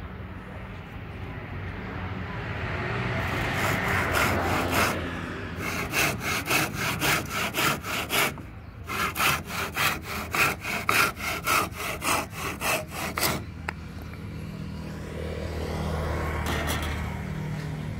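Hand saw cutting through a thin wooden strip in quick, even push-pull strokes, about three a second, with a brief pause about eight seconds in; the sawing stops about thirteen seconds in.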